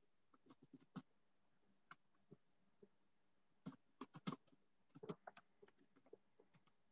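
Faint, irregular clicks and taps of a computer keyboard and mouse in use, in small clusters about a second in and again around four to five seconds in, over near silence.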